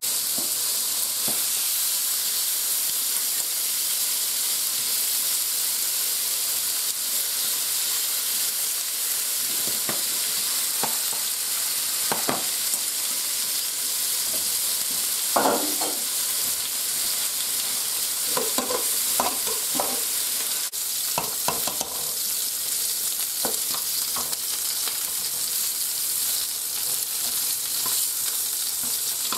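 Curry-marinated possum legs sizzling steadily as they fry in a frying pan, with a few brief knocks and scrapes of utensils at intervals, the clearest about halfway through.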